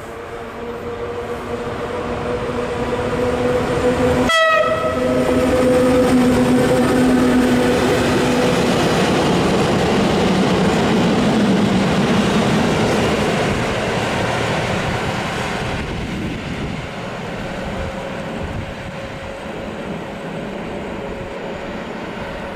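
Electric-hauled freight train passing at speed: steady tones from the locomotives shift down in pitch as they go by about four seconds in. Then come the rumble and clatter of the wagons, fading as the train pulls away.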